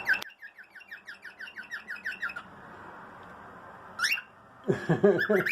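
Pet cockatiels calling: a rapid run of short falling chirps for a couple of seconds, then a single sharp rising whistle about four seconds in, and a burst of harsher squawks near the end.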